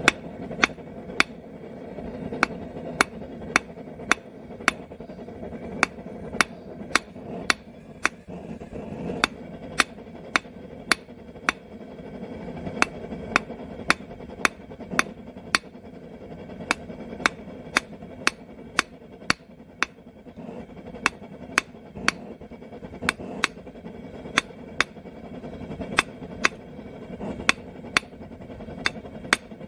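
Hand hammer striking hot 3/8-inch square steel stock on an anvil, drawing out a taper, in a steady rhythm of about two sharp blows a second with a few short pauses.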